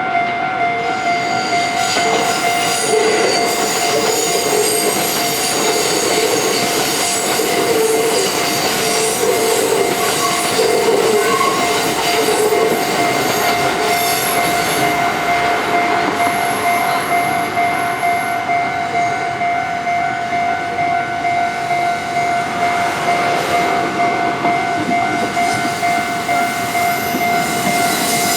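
Japanese level crossing warning bell ringing steadily while a KiHa 85 series diesel railcar train passes. The train's wheels squeal on the rails partway through.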